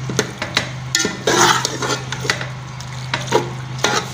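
A long perforated metal skimmer scraping and clinking against the inside of a large metal pot as chicken and vegetables are stirred together. The clicks and scrapes come irregularly, over a steady low hum.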